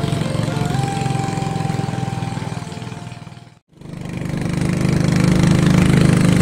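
Motor of a small wooden river boat running steadily under way. The sound fades out about three and a half seconds in and comes back louder.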